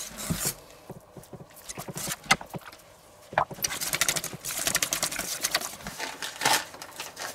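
Wire whisk stirring a thick mashed potato-and-cauliflower mixture in a stainless steel bowl, with irregular clicks and taps of the whisk against the bowl. The tapping is sparser and quieter for a few seconds and then picks up again.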